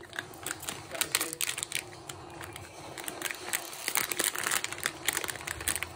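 Plastic snack packet crinkling and crackling in the hands as it is handled and opened, in a run of irregular small crackles.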